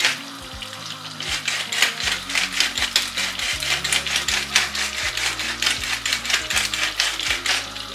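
Wooden pepper mill being twisted to grind pepper: a fast, continuous run of dry clicks.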